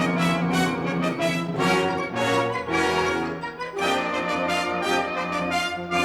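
Full wind band playing a loud passage led by the brass: trombones, trumpets and horns sounding sustained chords over a low bass, with repeated accented note attacks throughout.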